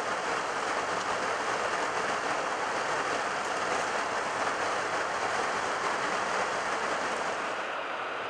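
Steady rushing noise on the flight deck of an Airbus A330-300 in the climb, from airflow around the cockpit and the air conditioning. Its hiss dulls slightly near the end.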